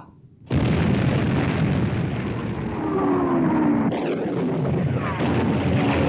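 A heavy battleship gun salvo: a sudden blast about half a second in, then a sustained rumble of gunfire. Faint falling whines of incoming shells follow, then two sharp shell bursts at about four and five seconds as the shells strike the sea.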